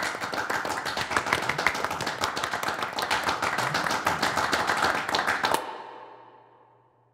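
A small group of people clapping their hands in brisk applause, which stops abruptly about five and a half seconds in, its echo fading over the next second or so.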